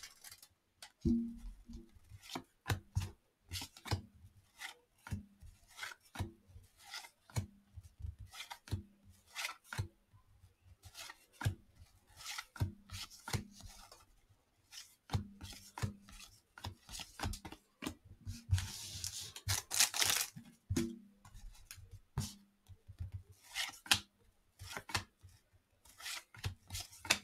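A stack of 1989 Fleer baseball cards being flipped through by hand, one card at a time: short, irregular snaps and scrapes of card sliding over card, about one or two a second, with a longer rustle about two-thirds of the way through.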